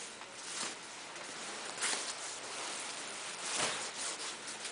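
Rustling and swishing of a quilted padded jacket's synthetic shell as hands turn it over and rummage inside it, with a few louder brushes.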